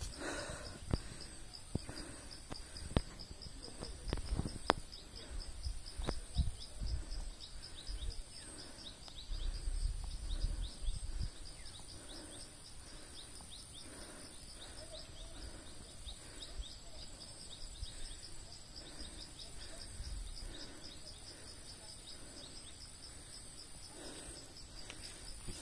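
Insects calling in a steady high-pitched chorus of rapid repeating chirps, with a few knocks and low rumbles in the first half.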